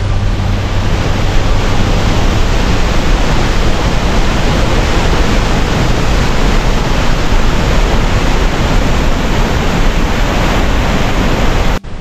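A tall waterfall plunging onto rocks close by: a loud, steady rush of falling water. The last notes of background music fade out in the first second, and the water sound cuts off abruptly just before the end.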